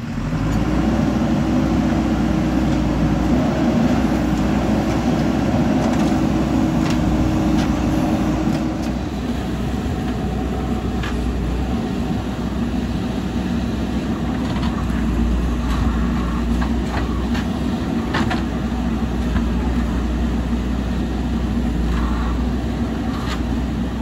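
Diesel engine of heavy earthmoving machinery working, revved up and under load at first, easing back after about nine seconds. Scattered knocks and clanks.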